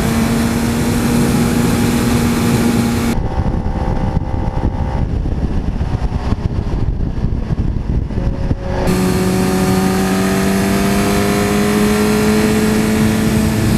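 Sport motorcycle engine running at a steady road speed under heavy wind noise. For a few seconds in the middle the engine tone drops out behind a duller rush. It then comes back with its pitch slowly rising as the bike speeds up.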